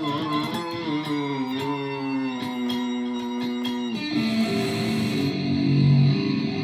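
Electric guitar played solo: single-note lead lines with wavering bends and vibrato. A long held note slides down sharply about four seconds in before more notes follow.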